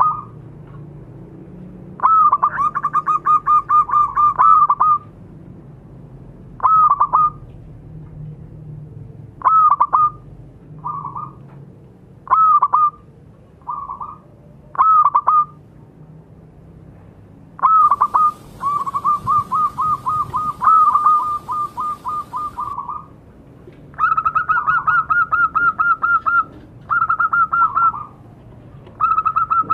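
Zebra dove (perkutut), a small-voiced local bird, cooing in repeated bouts of quick staccato notes. The bouts come about a dozen times, some lasting only half a second and the longest about five seconds. A few of them are fainter.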